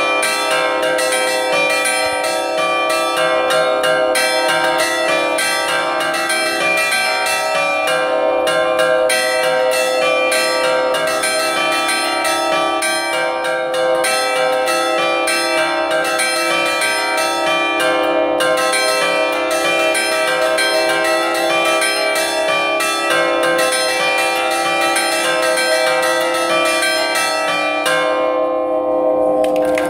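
A set of five bronze church bells tuned in C plus a small sonello, hung still and struck by clappers pulled on ropes: a fast, continuous Reggio Emilia-style sbacioccata pattern. The strikes stop near the end and the bells ring on.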